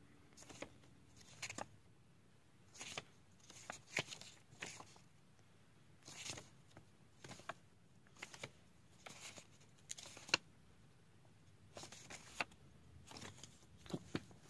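Pages of a CD lyric booklet being turned by hand: quiet, irregular paper rustles and flicks.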